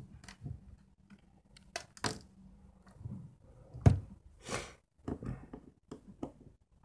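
Small clicks and knocks of tools and phone parts being handled on a tabletop during a smartphone teardown, with one louder thunk about four seconds in and a short scraping rustle just after.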